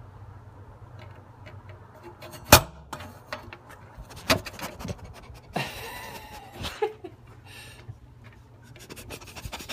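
Newfoundland puppies panting close to the mail slot, with scattered clicks and knocks. The loudest is a sharp knock about two and a half seconds in.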